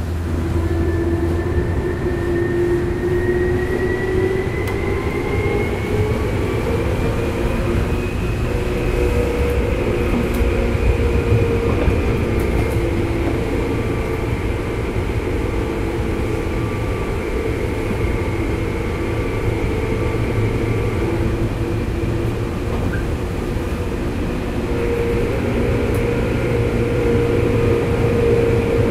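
Tokyu 8590 series chopper-controlled electric train heard from inside a motor car in a subway tunnel. The traction motors' whine rises in pitch over the first several seconds as the train gathers speed, then holds steady while it runs, over a constant rumble of wheels on rails.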